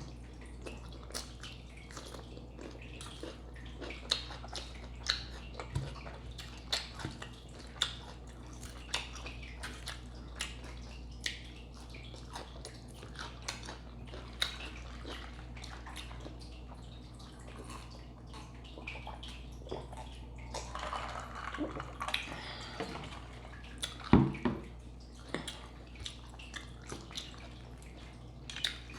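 Close-miked eating of a crunchy salad: wet chewing and crunching with irregular small mouth clicks, and one louder sound about 24 seconds in. A faint steady trickle of water goes on underneath.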